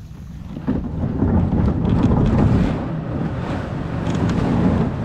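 Wind rumbling on the microphone over water sloshing around a kayak, growing much louder about a second in.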